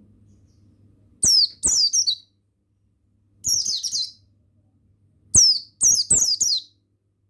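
Buxtoni white-eye (pleci) singing: three bursts of rapid, high twittering, each made of quick falling notes, with short pauses between them.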